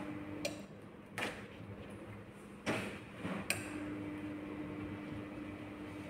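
Heat press machine giving off a steady low electrical hum, the noise problem it has. The hum stops with a click just after the start and comes back with another click about halfway through, with a few knocks and rustles from a T-shirt being laid on the platen.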